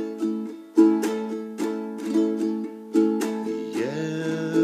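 Ukulele strummed in a calypso pattern of touch, roll, up, down, up, the same chord ringing under sharp repeated strokes. About four seconds in a man's voice starts singing along.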